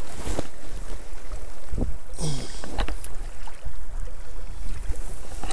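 Wind buffeting the microphone over the flow of a small river. A few short knocks and splashes come about a third of a second in and again around two seconds in, as a brown trout is handled in a landing net at the water's edge.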